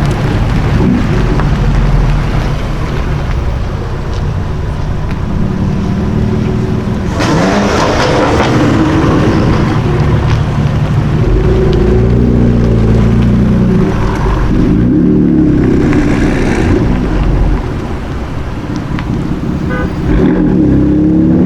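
High-performance car engines running loud in city traffic. A deep exhaust rumble is broken by several bursts of revving and acceleration: the pitch climbs and falls as cars pull away, about a third of the way in, again in the middle, and once more near the end.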